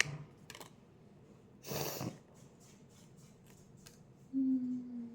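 Handling noises from unpacking: a click at the start, a short rustle about two seconds in, and a few faint ticks, then a brief low hum near the end.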